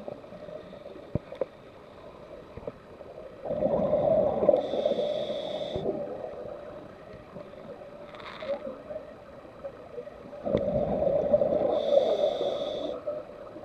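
Scuba diver breathing through a regulator underwater: two breaths, about 3.5 s and 10.5 s in, each a rush of bubbling with a high hiss from the regulator. A few light clicks come in between.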